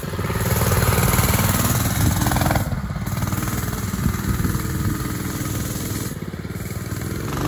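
Minibike's Predator 212cc single-cylinder four-stroke engine running hard under throttle as it is ridden over grass, its note dipping briefly twice.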